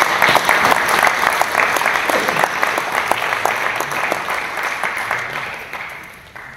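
A roomful of council members applauding, many hands clapping at once. The clapping thins and dies away near the end.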